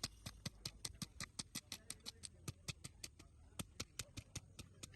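Knife chopping fish into small pieces on a board: quick, even knocks, about five a second.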